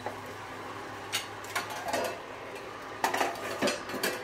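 Steel plate lid set down on a frying pan and a metal spatula and wooden spoon laid on it: scattered metallic clinks and clatters, the busiest and loudest about three seconds in.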